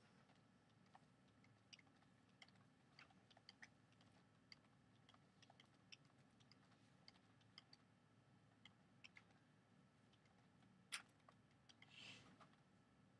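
Near silence: quiet room tone with faint scattered small clicks and ticks, a sharper click about eleven seconds in and a brief rustle just after.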